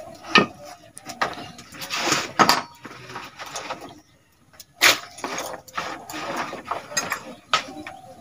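Irregular knocks, clinks and rustling of hands handling small food pieces on a bamboo winnowing tray, with sharp knocks about half a second in, near two and a half seconds and near five seconds.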